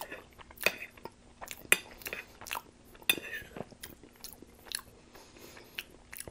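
Close-miked chewing of tender Salisbury steak in onion gravy: irregular wet mouth clicks and smacks.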